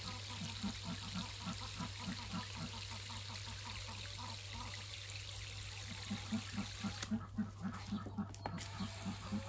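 Running water hissing steadily, cutting out for about a second and a half some seven seconds in, over a steady low hum and a regular low pulse about three times a second.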